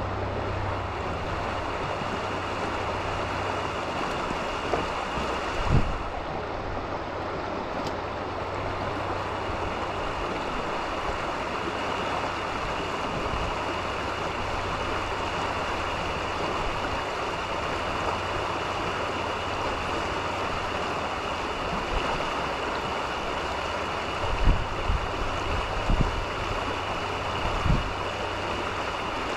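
Creek water running steadily, a constant rushing hiss, with a few low thumps about six seconds in and again near the end.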